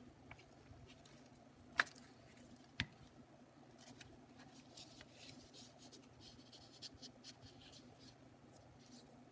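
Torn strips of watercolor paper being handled and pressed down as they are glued onto a sheet: faint rubbing and light paper scraping, with two sharp clicks about two and three seconds in.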